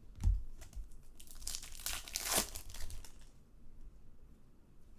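Foil trading-card pack wrapper being torn open and crinkled, a dense crackling that runs for about two seconds, after a low bump just after the start.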